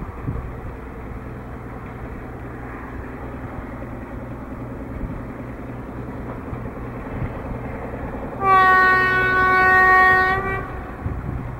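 Narrow-gauge BDZ series 75/77 diesel locomotive running with a steady low drone as it approaches, then one long, steady blast of its horn, about two seconds, some eight seconds in.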